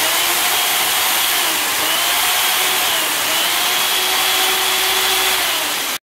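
Sencan CS 405 electric chainsaw running with no load, its motor and chain whirring steadily with a pitch that wavers gently up and down; the sound cuts off abruptly near the end.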